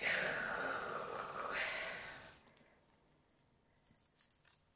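A loud breathy rush for about two seconds, then a few faint crisp crackles as the wings are pulled off a dried, roasted grasshopper by hand.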